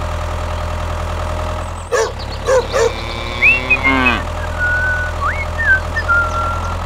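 Tractor engine idling steadily, briefly broken about two seconds in, standing for the toy tractor's running. Over it come short squeaky chirps and clicks, then a few high whistling glides.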